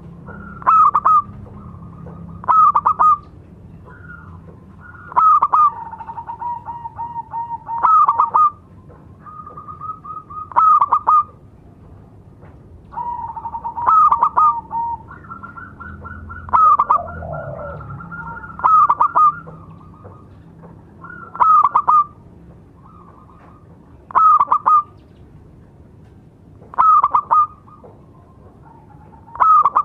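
Zebra dove (perkutut) calling: loud bursts of rapid staccato cooing notes, each under a second long, repeated about every two and a half to three seconds, with softer, drawn-out coos between them.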